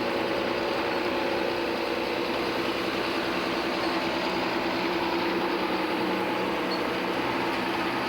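Large John Deere tractor diesel engines running steadily at an even pitch while pulling ploughs through stubble.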